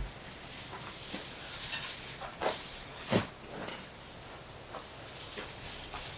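Pitchfork working through loose straw on a barn floor: a dry rustling hiss with irregular sharper scrapes and thumps, the strongest at the start and about three seconds in.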